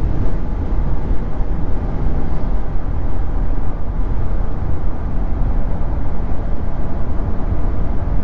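Steady road and tyre noise inside the cab of a 2022 Nissan Frontier Pro-4X at highway speed, a low rumble from its all-terrain tyres on the pavement.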